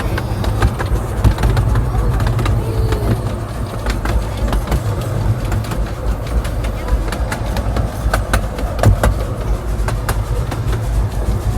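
Museum train running: a steady low rumble with scattered clicks and rattles that grow more frequent after about four seconds.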